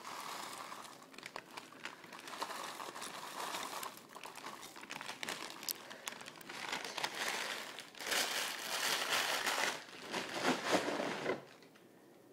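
Irregular rustling and crinkling with small crackles, as of plastic or paper being handled up close. It is loudest from about 8 to 11.5 seconds in, then drops away.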